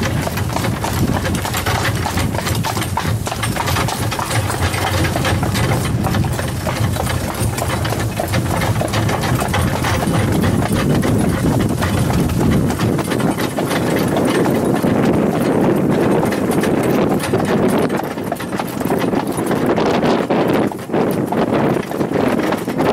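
A horse's hooves clip-clopping steadily on a paved road as it pulls an open horse-drawn cart, with the cart's wheels rumbling along underneath.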